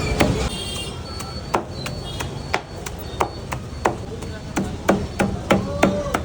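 A knife chopping on a cutting board in a series of sharp strokes, roughly one every half second, coming faster near the end, over steady background noise.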